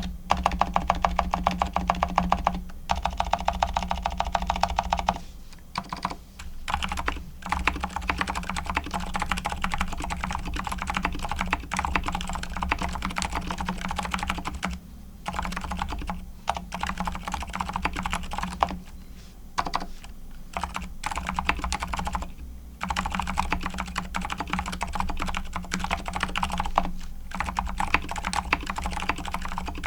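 Fast, continuous typing on a Logitech K855 keyboard fitted with factory-lubed TTC silent Moon White linear switches and grease-lubed stock stabilizers, broken by a few brief pauses.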